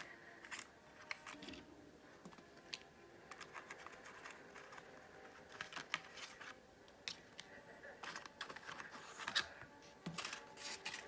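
Foil-rimmed lids being pried and peeled off aluminium foil takeaway trays: the foil crinkles and crackles in an irregular run of sharp clicks and rustles.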